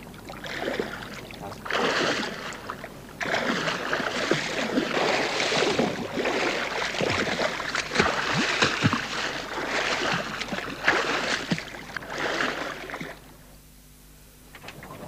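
Heavy splashing and churning sea water in irregular surges, with a few sharp knocks, as a great white shark thrashes at the surface beside a shark cage. It dies away shortly before the end.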